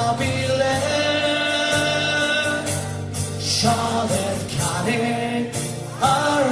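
A song playing: singing voices holding long notes over instrumental backing.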